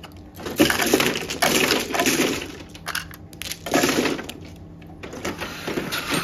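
Mahjong tiles clattering as they are swept by hand into the centre opening of an automatic mahjong table. A long rush of clatter fills the first couple of seconds, and a shorter one comes around four seconds in.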